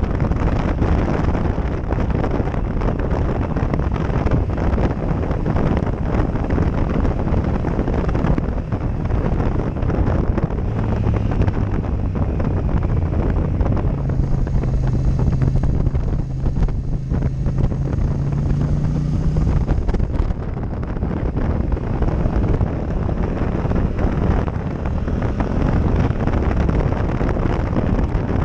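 Heavy wind buffeting on a helmet-mounted camera microphone at road speed, over the running engine of a Yamaha MT-07-family motorcycle. The engine note holds steady from about a third of the way in and drops away past the middle, as the throttle comes off.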